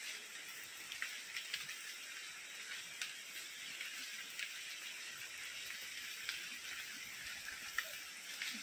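Steady hiss of running water from a shallow stream, with faint scattered ticks.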